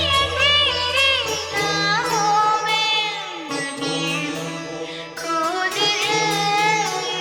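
Background music: a gliding, ornamented melody over a steady drone, with a deep bass note that drops out about two seconds in.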